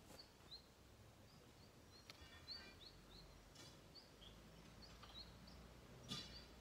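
Near silence with faint bird chirps: short high notes repeated irregularly, and three brief raspy clicks.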